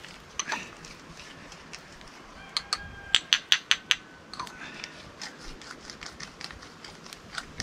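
Dried hot pepper pods being snapped and crumbled by hand: a quick run of sharp crackling snaps, about five a second, around the middle, with a few scattered clicks before and after.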